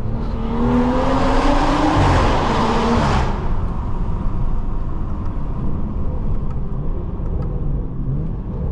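Stage 2 tuned BMW 540i's turbocharged straight-six, with a downpipe and catback exhaust, accelerating hard for about three seconds with rising pitch. About three seconds in it lifts off abruptly, and the engine drops to a low exhaust rumble as the car rolls on.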